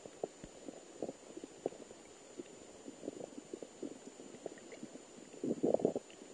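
Muffled underwater sound from a camera held in the water: irregular small clicks and pops of water and bubbles against the housing, with a louder flurry of them just before the end.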